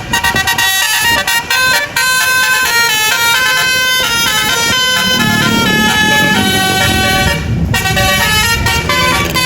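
Basuri-type telolet bus horn playing a quick melody, its several horn tones stepping rapidly from note to note. A low rumble joins about five seconds in.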